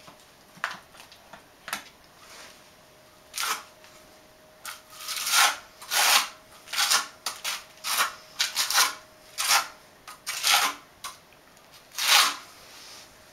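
Steel notched trowel scraping and spreading tile mastic over a cement floor, in short strokes that come sparsely at first and then quickly, about a dozen, from about four seconds in.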